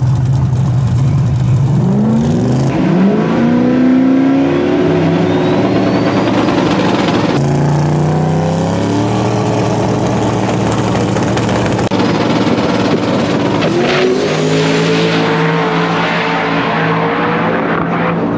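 Mustang drag cars' engines revving up sharply and holding at high revs on the starting line, twice, loud throughout.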